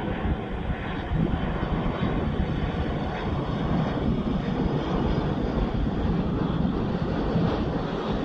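Twin jet engines of a Boeing 737 airliner on landing approach with its gear down, passing low overhead: a steady drone that grows a little louder about a second in and then holds.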